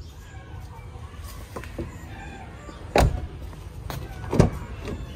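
A 2017 Toyota Innova's side door swung shut with a loud thud about three seconds in, then a second sharp clunk from the door about a second and a half later as its outside handle is worked.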